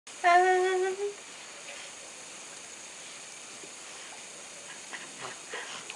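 A single short call held at a steady pitch for under a second, then a low steady background with a few faint soft ticks near the end.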